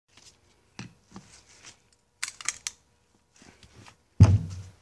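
Metal outboard powerhead parts being handled: scattered light clicks and a quick run of three sharp metallic clinks, then a heavier thump about four seconds in as a part is set down or knocked against the engine block.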